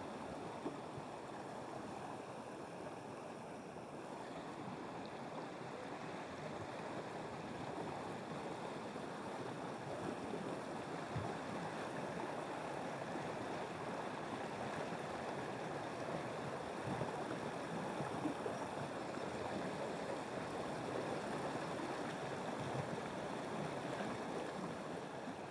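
Steady rush of a flowing stream's water, with a few faint ticks.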